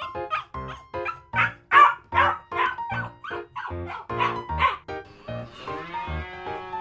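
A dog barking several times over background music with a steady beat.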